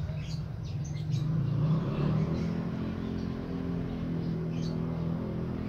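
A steady low engine hum, with a few faint light clicks of two pairs of pliers twisting a copper wire splice tight.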